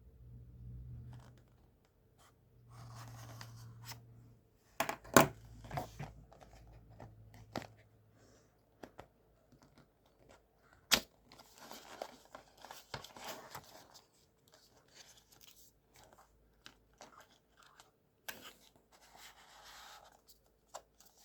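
Packaging being cut and torn open: scattered sharp snips and clicks with stretches of tearing and rustling of the wrapping.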